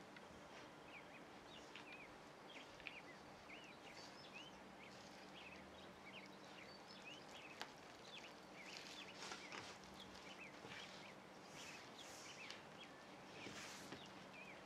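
Near silence, with faint quick chirps of small birds in the background and soft rustling of hands working flour into dough in a steel bowl. The rustling grows a little stronger in the second half.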